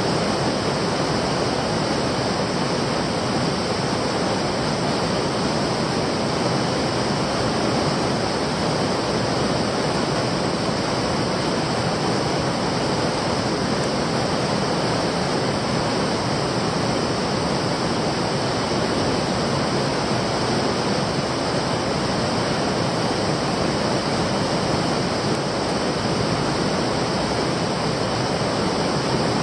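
Fast-flowing stream water rushing in a steady, unbroken wash of noise.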